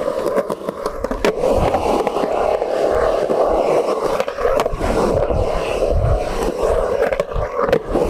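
Skateboard rolling steadily with a constant wheel roar, broken by a few short sharp knocks.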